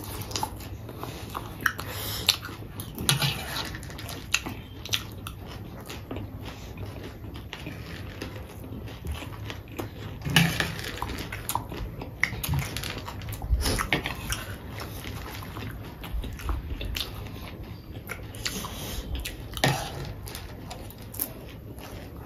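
Several people chewing and crunching spicy chatpate, a crunchy crushed-noodle snack, in short scattered bites and mouth clicks.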